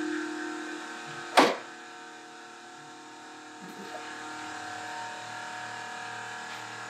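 Serene Life SLCASN25 plastic portable sink cart set down upright on a concrete floor, one sharp knock about a second and a half in. A steady hum of several tones runs underneath.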